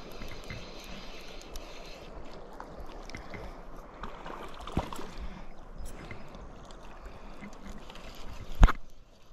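Steady rush of river water flowing over a shallow gravel bed, with a small click about halfway and a sharp knock near the end.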